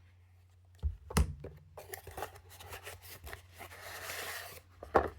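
Cardboard box packaging being opened and handled: two sharp knocks about a second in, small clicks and scrapes, then a papery rustle near the end as the contents are pulled out, and another knock just before the end.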